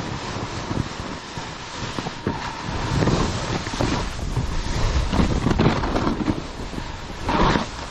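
Wind rushing over a helmet-mounted action camera's microphone at speed, mixed with the hiss and scrape of edges carving through snow during the descent. The rush swells in uneven surges, loudest about three seconds in and again around five to six seconds.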